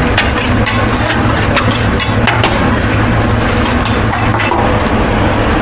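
Food sizzling on a hibachi griddle over a steady low hum, with sharp metal spatula clicks on the griddle, a quick run of them in the first two and a half seconds and one more about four and a half seconds in.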